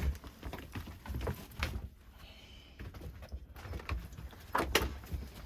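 Irregular soft thumps and clicks of a person moving about with a dog, with two sharper knocks about four and a half seconds in.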